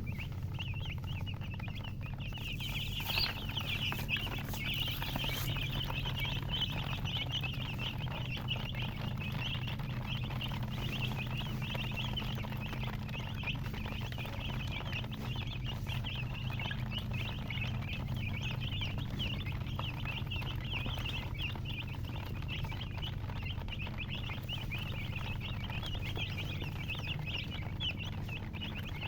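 A brood of baby chicks peeping continuously, a dense overlapping chorus of short high chirps, over a steady low hum.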